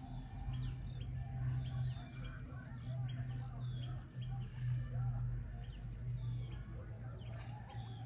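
Small birds chirping, many short quick calls overlapping, over a steady low hum.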